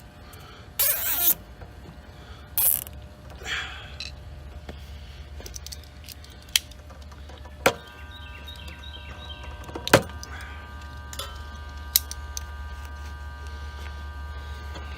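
Plastic zip ties being pulled tight around wiring, three quick ratcheting zips in the first few seconds, followed by several sharp separate clicks, with a low steady hum underneath.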